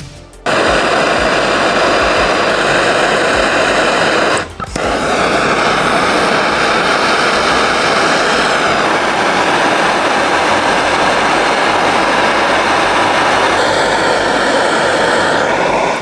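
Hand-held gas torch flame hissing steadily while heating a copper pipe fitting for soldering. It cuts out briefly about four and a half seconds in, then resumes.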